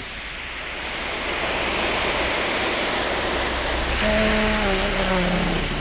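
A rushing, surf-like noise swells over the first two seconds and then holds. From about four seconds in, a low tone with a few overtones joins it and sinks slightly in pitch.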